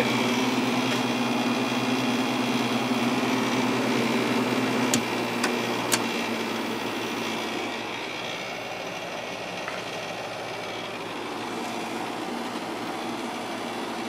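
Fedders 7500 BTU window air conditioner running on high fan, its Rotorex compressor humming steadily along with the fan's airflow. About five seconds in, the compressor hum drops away and the unit gets a little quieter, with two faint clicks around then.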